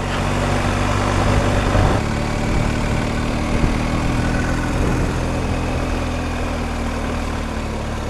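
BMW R 1250 GS Adventure's boxer-twin engine running steadily as the bike rides along, with wind noise rushing over the microphone.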